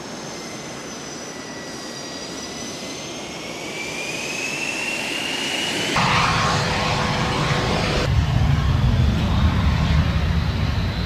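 Jet engines of Saab JAS 39 Gripen fighters taxiing. A high turbine whine rises slowly in pitch and grows louder, then gives way abruptly to a louder, deeper jet rumble.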